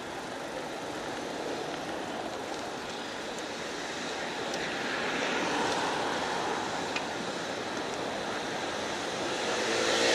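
Street traffic heard from a moving bicycle: a steady rush of passing vehicles, swelling around the middle and rising again near the end as a louder vehicle approaches.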